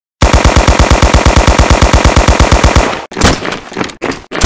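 Sound-effect automatic gunfire: a continuous burst of rapid shots, about ten a second, lasting nearly three seconds, then a few separate sharp cracks at uneven intervals.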